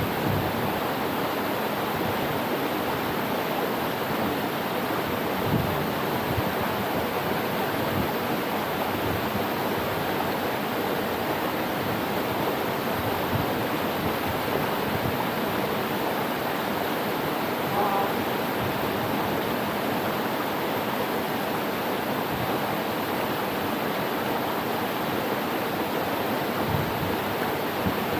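Steady rushing of a mountain waterfall's falling water. About two-thirds of the way through there is a short, faint chirp.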